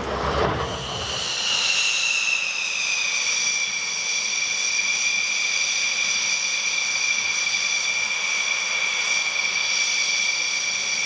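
Jet aircraft engine whining at a high pitch. The whine falls slightly over the first few seconds, then holds steady.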